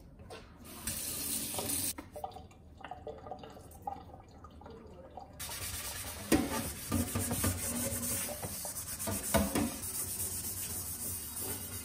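Tap water running into a stainless steel sink while a new carbon steel wok is scrubbed in hot soapy water with a stainless steel scrubber to strip its factory anti-rust coating. The running water and scrubbing become steady from about five seconds in.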